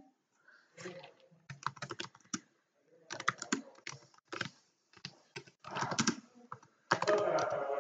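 Typing on a computer keyboard: irregular clusters of keystrokes, the densest and loudest run near the end.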